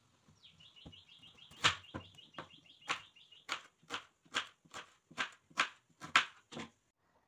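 Kitchen knife chopping a raw green banana on a wooden cutting board, about a dozen sharp knocks at roughly two a second as the blade goes through and strikes the board. A bird chirps in a fast run of high notes during the first half.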